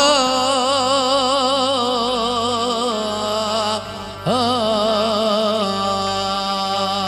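A man singing Kurdish folk song into a microphone, holding two long melismatic notes with a wide vibrato. The second note comes in about four seconds in with an upward scoop. Under the voice runs a steady drone.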